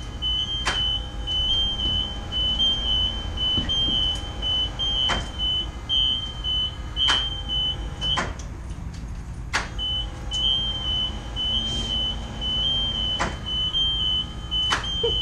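A school bus's warning buzzer sounds as a steady, high, slightly warbling tone. It cuts out for about a second and a half past the middle, then comes back. Sharp clicks and knocks come every second or two over a low rumble.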